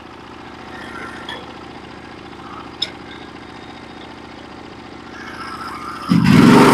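Norwood HD36v2 portable bandsaw mill's engine idling steadily, then revving up loudly about six seconds in as the mill is brought up to speed for a cut.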